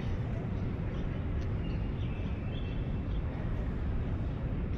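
Outdoor park ambience: a steady low rumble, with a few faint high chirps about two seconds in.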